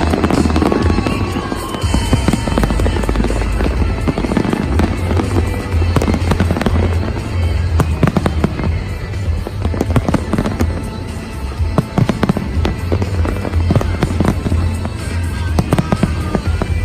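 A large fireworks display: a dense run of bangs and crackles going off throughout, over music playing loudly.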